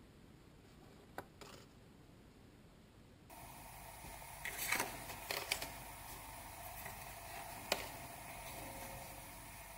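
Stiff paper trading cards being handled and flipped through, one card slid behind another: a few short clicks and snaps of card against card, with a sharper click near the end, over a steady low hiss.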